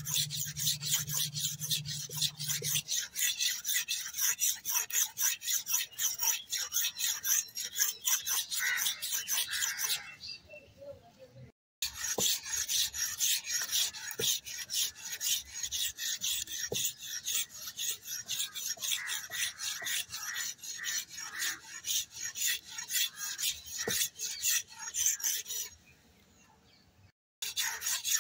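Hand file scraped rapidly back and forth along an aruval's steel edge to sharpen it, several strokes a second. The scraping stops briefly about ten seconds in and again near the end.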